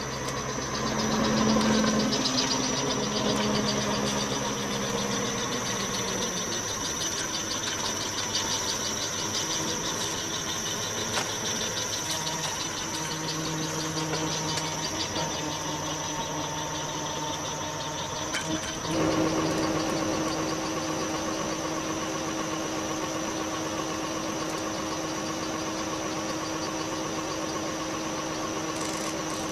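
An engine running steadily at idle. Its tone shifts twice: about six seconds in, and again near twenty seconds in, where it briefly grows louder.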